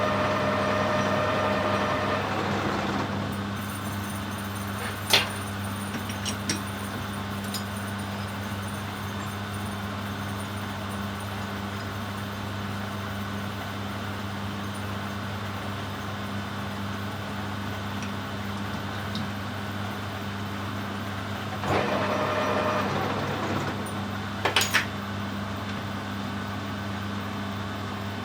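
Metal lathe running with a steady motor hum while turning a stainless steel round bar. A higher-pitched cutting tone is heard for the first few seconds and stops, then comes back briefly later on. There are a few sharp clicks.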